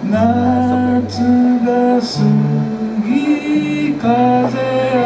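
A man singing live while playing an acoustic guitar. The voice comes in at the start over held bass notes that change chord about every second.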